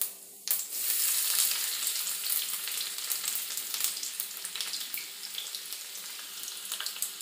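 Chopped garlic dropped into hot oil with crackling cumin seeds in a stainless steel kadhai: about half a second in the oil bursts into a loud sizzle with scattered pops, then eases gradually to a steadier frying sizzle.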